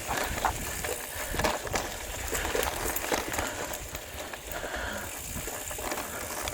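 Mountain bike rolling over a rough trail: a steady tyre-and-ride noise with a low rumble and scattered small clicks and rattles.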